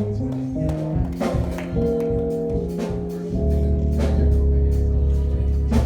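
Instrumental church band music: held chords over a bass line with drum hits, and a deep bass note sustained through the second half.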